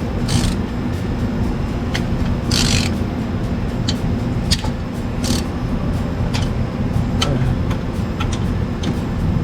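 Workshop noise: a steady low hum with three short hisses, about half a second each, and scattered sharp metallic clicks.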